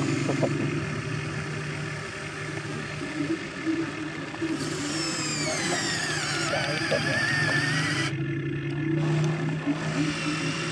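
An excavator digging soil, its motor running with a steady hum. About halfway through a whine falls and then climbs again.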